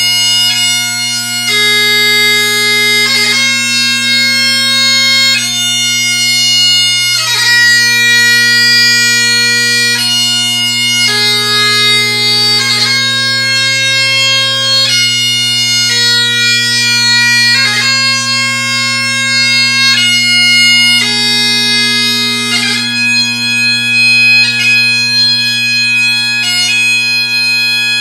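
Great Highland bagpipe playing a slow piobaireachd lament. Steady drones sound under long-held chanter notes that change every couple of seconds, each change marked by quick grace-note flourishes.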